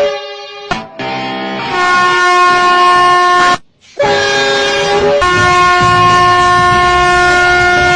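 Snail-type electric vehicle horn blowing in loud, steady blasts. A short blast ends under a second in, a long one stops about three and a half seconds in, and another begins about half a second later. Each long blast steps to a different, higher-sounding chord partway through.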